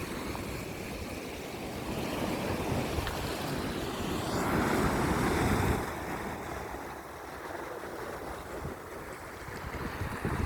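Sea waves washing on the shore, one surge swelling louder about four seconds in and falling away at about six seconds.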